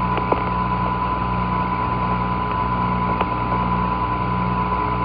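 Open Apollo air-to-ground radio channel with no one talking: steady hum and hiss with a thin constant tone, and a few faint clicks early on and about three seconds in.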